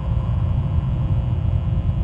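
Steady low rumble with a few faint, steady hum tones above it, unchanging throughout.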